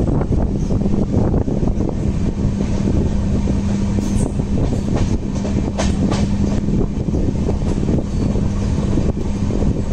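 Mandavi Express passenger train running along the track, heard from aboard: a steady rumble of wheels on rails with a low hum and a few sharp clicks.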